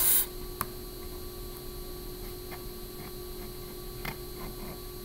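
Quiet room tone with a steady electrical hum and a few faint ticks.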